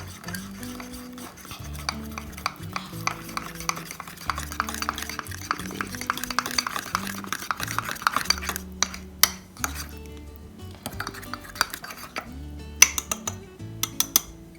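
A fork stirring cake batter in a mug: fast scraping strokes against the mug, then a few sharp clinks of the fork on the rim near the end. Soft background music plays underneath.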